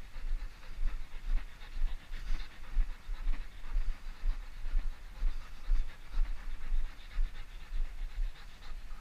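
Belgian Malinois panting steadily, about two breaths a second, with a low thud at each pulse.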